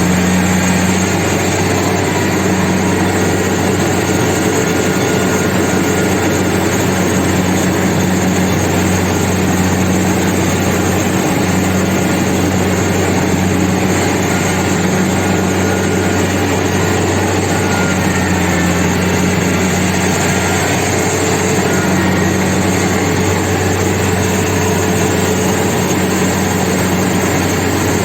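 Kubota combine harvester running steadily under load, its diesel engine humming evenly over the churning noise of the machine as it harvests rice.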